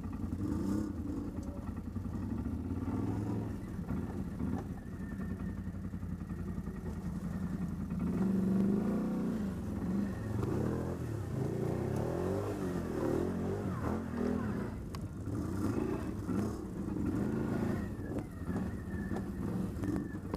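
ATV engine running under load, revved up and down again and again; from about eight seconds in the pitch swells and falls in quick surges.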